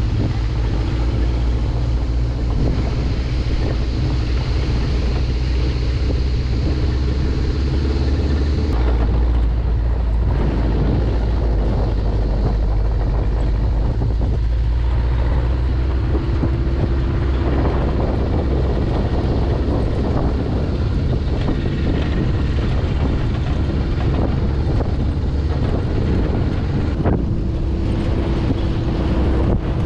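Safari jeep driving, its engine running steadily under heavy wind buffeting on the microphone.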